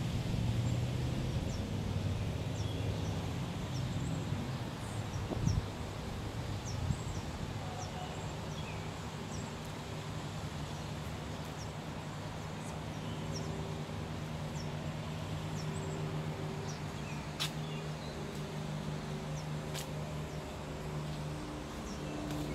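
Outdoor ambience: a small bird chirping in short high notes over and over, over a steady low rumble and hiss. Two sharp clicks come in the later part.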